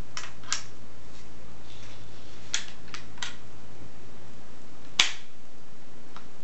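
Metallic clicks from the lock of a 1620 wheellock pistol being worked by hand: a few small clicks in the first three and a half seconds, then one louder, sharp snap about five seconds in.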